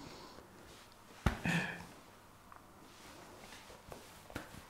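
Quiet room tone broken about a second in by a sharp click and a brief breathy sound from a man holding back tears, with a few faint ticks near the end.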